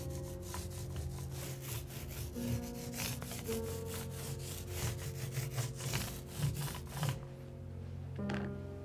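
Small paint roller rubbing back and forth over a rough, cement-based textured plaster wall in quick, rhythmic strokes. The rubbing stops about seven seconds in.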